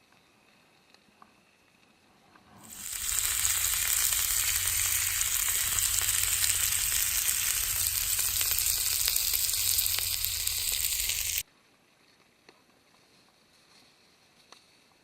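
Food sizzling loudly and steadily in a skillet. The sound swells in over about half a second and stops abruptly about eight seconds later.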